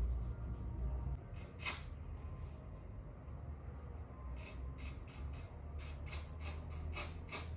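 A spray bottle spritzing in short hissy bursts: two near the start, then a quick run of about eight, roughly three a second, in the second half.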